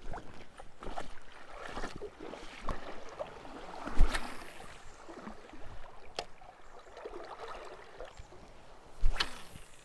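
A person in waders wading out through a shallow river, water sloshing and splashing around the legs stride after stride. Two louder thumps stand out, about four seconds in and again near the end.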